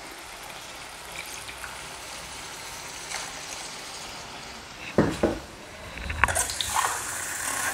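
Potato curry in a wok, freshly thinned with watered coconut paste, hissing and trickling steadily as it heats. A short knock comes about five seconds in, then a louder hiss near the end.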